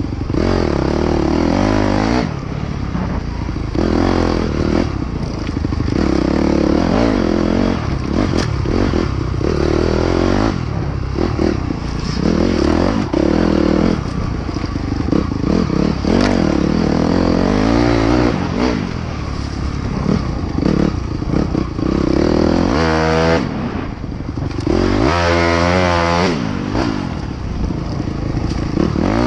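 Dirt bike engine revving up and down as the bike is ridden along a rough trail. The revs climb and fall repeatedly, with the sharpest swings near the end, and occasional knocks come from the bike over the ground.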